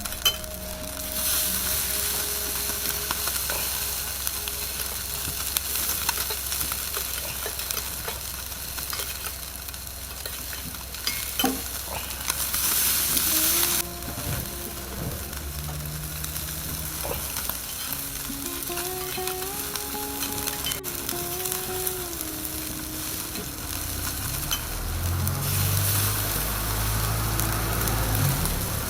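Chicken-skin skewers sizzling and crackling as they grill over charcoal, the hiss swelling louder now and then.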